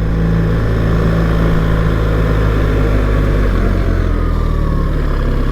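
BMW R 1300 GS's boxer-twin engine running steadily as the motorcycle is ridden, its note dropping a little about three and a half seconds in.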